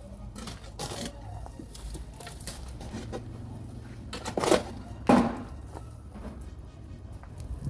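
A few short, sudden knocks or scrapes over a low rumble, the two loudest about four and a half and five seconds in.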